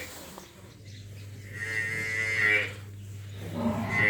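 Dairy cattle mooing: one drawn-out call about a second and a half in, and another starting near the end, over a steady low hum.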